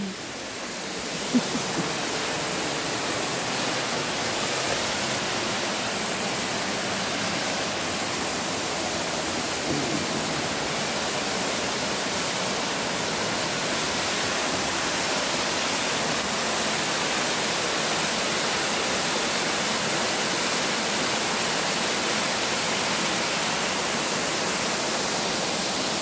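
Steady rush of a mountain creek's waterfall cascading over rocks, an even, unbroken hiss.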